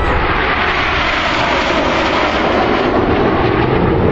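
A fixed-wing display aircraft flying past, its engine noise a loud, steady rushing sound.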